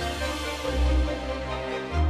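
Background music: sustained chords over deep bass notes that change about once a second.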